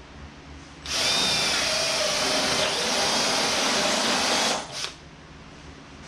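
Cordless drill boring a rosette hole through a metal tube clamped in a vise. The cutting starts about a second in and runs for nearly four seconds, loud, with a thin high squeal over the grinding, then stops abruptly.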